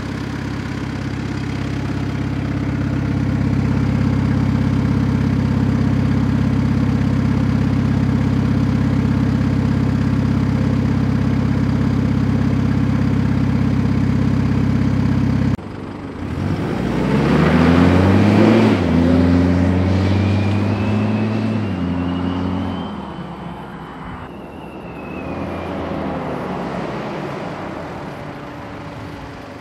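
Mitsubishi Pajero NS short-wheelbase with a 3-inch stainless steel exhaust idling steadily, heard close to the tailpipe. About halfway through, the sound cuts to the same vehicle accelerating along a road: its exhaust note climbs, drops at a gear change, holds, then fades, with a short second rise near the end.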